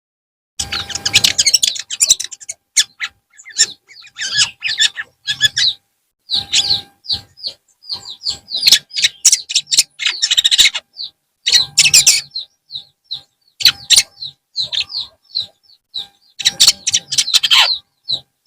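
Long-tailed shrike (cendet) singing: a fast, continuous run of high chirping notes broken every few seconds by harsh, scratchy chattering, starting about half a second in.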